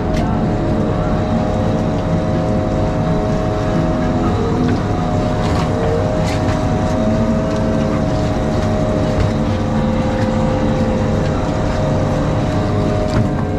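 Fishing boat's engine running steadily with a constant drone, with a few sharp clicks or knocks over it.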